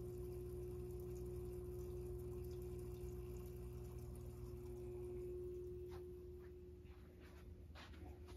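Goldfish aquarium's pump running with a steady electrical hum and a faint trickle of water. The hum fades out about six seconds in, and a few soft knocks follow.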